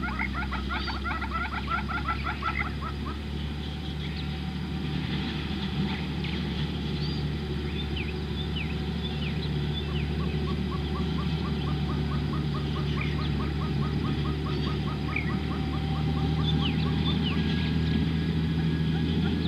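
Outdoor wildlife ambience: birds give scattered short high chirps over a fast, rattling pulsed animal call and a steady low rumble. The rattling call stops about three seconds in and returns about ten seconds in.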